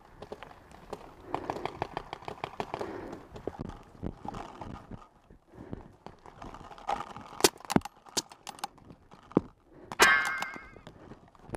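Paintball field sounds: scattered sharp pops of paintball markers and the knocks and rattle of the player's gear as he moves and aims behind bunkers, with the loudest sharp strikes in the second half. A short wavering pitched sound comes about ten seconds in.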